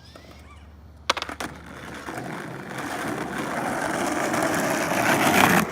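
Skateboard wheels rolling on pavement, growing steadily louder as the board approaches, after a few sharp clicks of the board about a second in; the rolling stops abruptly at the end.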